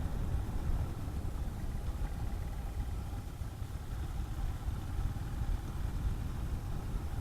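Honda CB400SS single-cylinder motorcycle engine running steadily while riding, heard as a low, even rumble.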